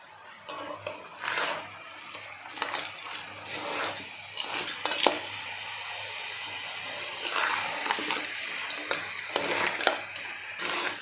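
A spatula stirring and tossing whole small crabs in a wok, the shells clattering and scraping against the pan in irregular bursts.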